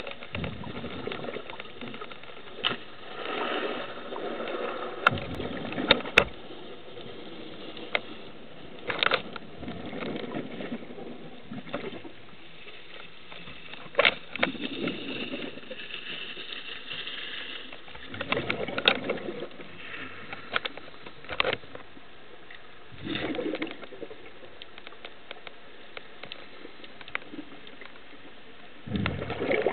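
Scuba regulator breathing underwater: a gurgling swell of exhaled bubbles comes about every four to five seconds over a steady hiss, with scattered sharp clicks.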